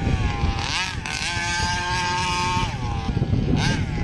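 RCMK 30cc two-stroke engine of a 1/5-scale King Motors Baja gas RC buggy revving in short throttle blips, then held at a steady higher pitch for about a second and a half before dropping back, with another quick blip near the end. The throttle response is a little weird.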